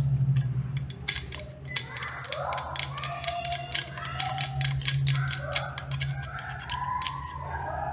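Screwdriver tip scraping and clicking against the small metal contact inside a modular wall switch, in many quick irregular clicks, while carbon and corrosion are cleaned off the contact.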